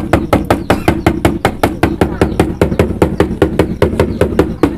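Shaman's dhyangro, a handled frame drum, beaten with a curved stick in a fast, even beat of about seven strokes a second.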